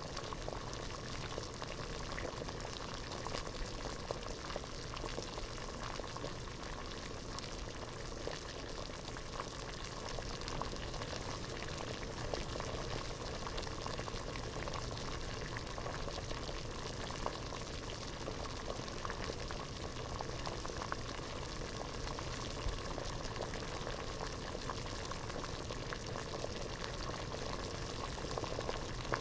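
Pot of water at a rolling boil: steady, dense bubbling with many small pops.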